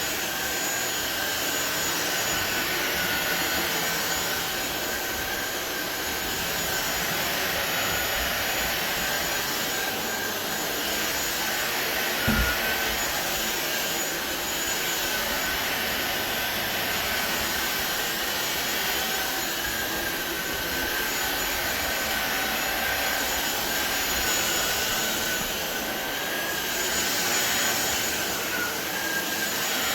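SunSare cordless stick vacuum running steadily, its motor giving a high, slightly wavering whine over the rush of air. There is a single brief thump about twelve seconds in.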